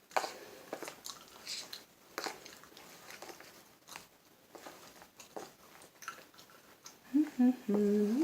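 Homemade glue-and-shaving-foam slime being stirred in a bowl: irregular sticky, wet clicks and squelches. A voice briefly sounds near the end.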